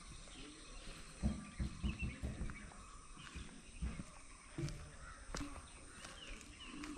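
Birds chirping and calling in short, high notes, over a run of low thuds from about a second in that are louder than the birdsong.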